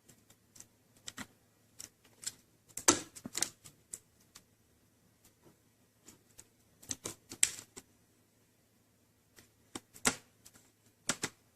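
Irregular sharp clicks and taps of plastic laptop screen parts being handled and pressed into place, the loudest clusters about three, seven and ten seconds in.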